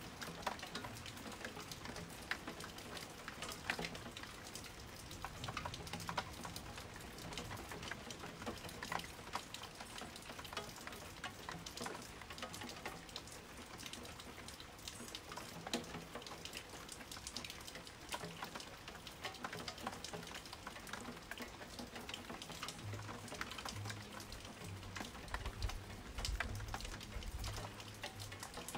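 Rain falling steadily in a thunderstorm, a dense crackly patter of drops. A low rumble comes in near the end.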